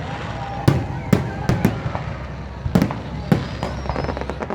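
Aerial fireworks bursting: about six sharp bangs with a low boom, unevenly spaced, followed near the end by a quick run of crackles.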